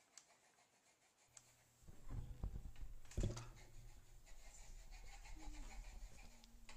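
Handling noise from the camera being moved and set in place: rubbing and scratching with low rumble, after a quiet start, and one louder bump a little before halfway.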